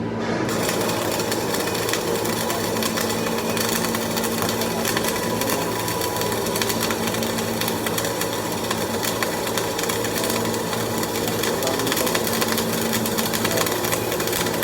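Stick (shielded metal arc) welding: the arc strikes about half a second in, then a steady, dense frying crackle as the electrode burns onto the steel test plate, with a low electrical hum underneath.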